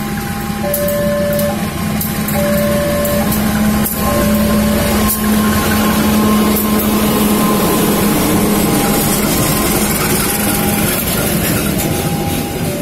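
A CC 203 diesel-electric locomotive passes close by, its engine drone loudest through the middle and fading near the end as the coaches roll past. Throughout, a two-tone warning alarm alternates a lower and a higher note, each about two-thirds of a second long.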